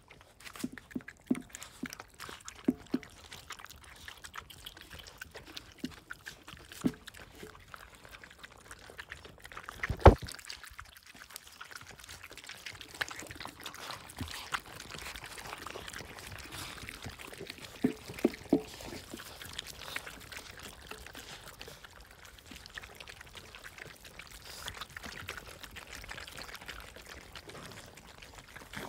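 Belgian Malinois puppies eating minced raw beef from a stainless steel pan: wet chewing and slurping with scattered clicks against the metal, growing busier as more puppies join in. One louder knock on the pan about ten seconds in.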